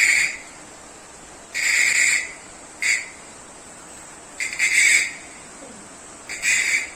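Abu Cardinal 4 spinning fishing reel's ratchet mechanism buzzing in short bursts, four times, the third one very brief.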